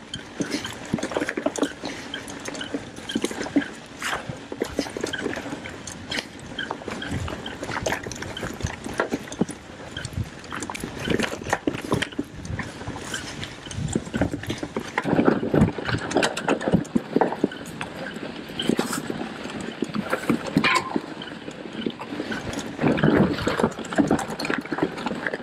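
Mountain bike rolling along a forest dirt trail: tyres on dirt and roots with a constant clatter of knocks and rattles from the bike over bumps. The rattling gets heavier twice, past the middle and again near the end.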